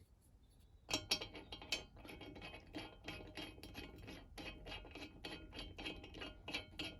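Steel clamping-kit parts being handled and fitted together: a fast run of small metallic clicks and scrapes, several a second, starting about a second in.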